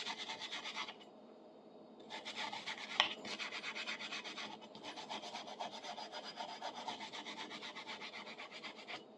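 A fine wire hand brush scrubbing rust and old paint off a cast-metal shingle puller, in quick back-and-forth strokes of about four a second, with a short pause about a second in and a single knock a little later.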